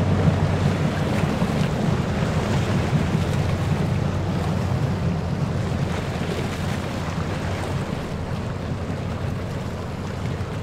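Low engine rumble of a passing river ship, fading gradually, over river water lapping against a breakwater and a light breeze.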